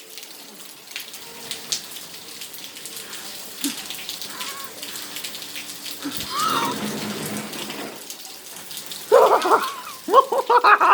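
Hail and rain coming down, a steady patter dotted with many small sharp ticks of hailstones striking. The patter swells louder for about a second and a half around six seconds in.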